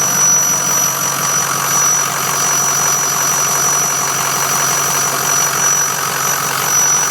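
A 2006 Ford F-350's 6.0 L Power Stroke V8 turbo-diesel idling, with a steady high-pitched whistle from under the hood riding over the engine noise. The owner has not found what causes the whistle.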